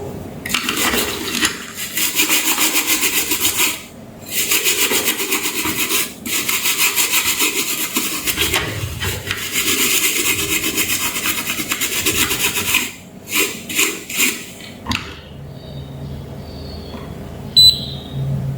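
Rapid, even rubbing strokes in long runs with short breaks, then a few short bursts, as a hard surface is scrubbed or scraped by hand. A short high beep sounds near the end.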